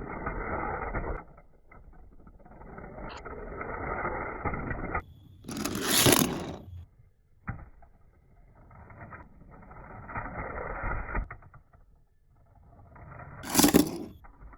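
Plastic toys and packaging being scraped and rubbed, in several swelling stretches of a second or more, with two short, loud, crisp crackles: one about six seconds in, one near the end.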